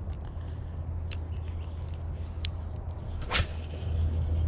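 A spinning rod swishes sharply through the air once, about three seconds in, over a steady low rumble, with a few light clicks before it.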